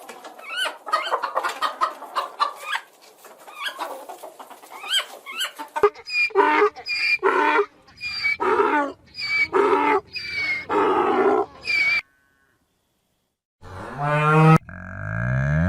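Chickens clucking and squawking in a run of short, repeated calls that cut off abruptly. Near the end, after a moment of silence, a cow starts to moo.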